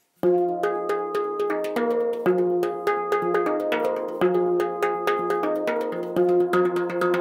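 Handpan played by hand: a quick, even rhythm of ringing metallic notes, several strikes a second. It starts suddenly just after the beginning.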